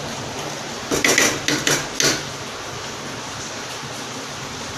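Metal masher knocking against the bottom of a kadai while mashing cooked chickpeas in thick masala: a quick run of about five knocks between one and two seconds in.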